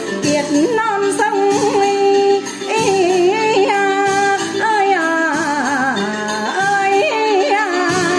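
Hát văn (Vietnamese chầu văn) singing: a woman's voice holds long, ornamented notes with a wide, wavering vibrato over traditional instrumental accompaniment.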